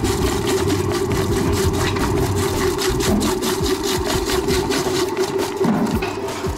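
Electric vegetable cutting machine running with a steady motor hum while its blades dice cooked carrots, with a fast, even ticking from the cutting and the cubes falling out of the chute.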